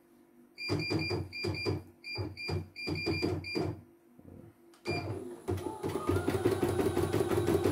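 CNY E900 computerized embroidery machine beeping rapidly, about four times a second, as its control-panel buttons are pressed, each beep with a short mechanical click. About five seconds in the machine starts running with a fast, even rhythm of needle strokes.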